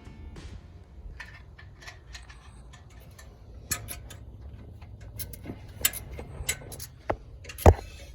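Irregular clicks and metallic clinks of hand tools working on exhaust header bolts, with a sharper knock near the end, over a low steady hum.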